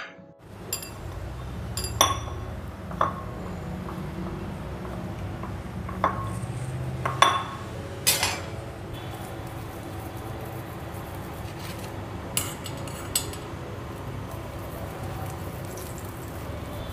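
Steel spoon and kitchen utensils clinking against steel bowls and a griddle: about nine sharp, ringing clinks spread out over a steady low background noise, the loudest about two seconds in and again about seven seconds in.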